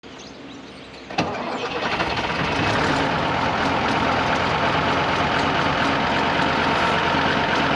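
An old SAME tractor's diesel engine starts about a second in, then runs on steadily.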